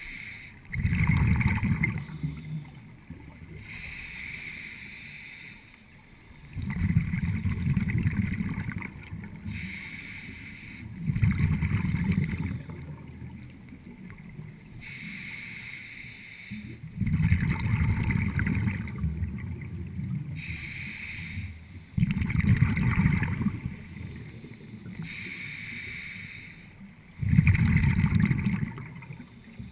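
Scuba diver breathing through a regulator underwater: six loud bubbling rumbles of exhaled air, one every five seconds or so, each followed by a softer hiss of inhalation.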